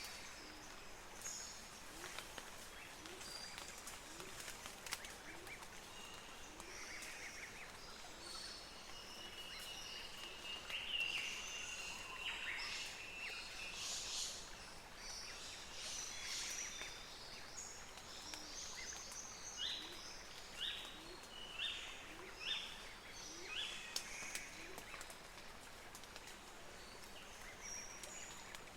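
Birds chirping and singing over a steady hiss, with a run of short repeated calls about once a second past the middle and a few scattered sharp clicks.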